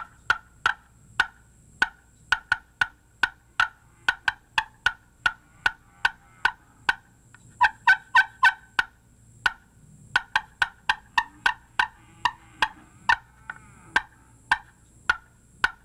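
Slate friction turkey call played with an acrylic striker: excited hen cutting, a long run of sharp, irregular clucks coming in quick bursts, with a short break about nine seconds in.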